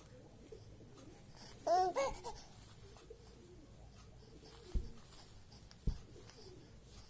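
Baby girl cooing: one short, pitched coo that bends up and down about two seconds in, with fainter soft vocal sounds later. Two dull thumps near the end.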